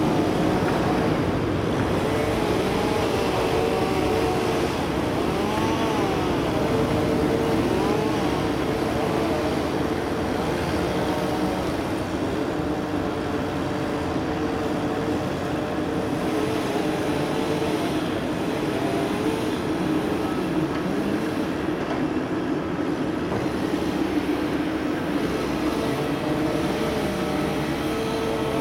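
Airbus A330 jet engines at idle as the airliner taxis: a steady drone with a constant hum.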